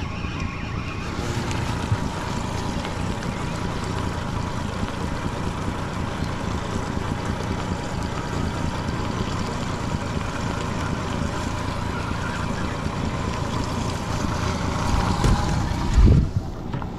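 Honda 30 hp four-stroke outboard motor running steadily as the boat moves under way, with water and wind noise on the microphone. A loud low thump near the end.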